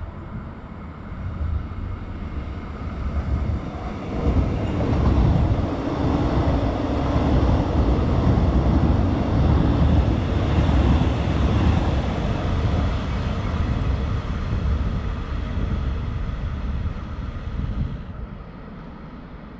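Metro Trains X'Trapolis electric multiple-unit train passing along the tracks. The rumble of the train builds about four seconds in, stays loud through the middle, then fades away near the end.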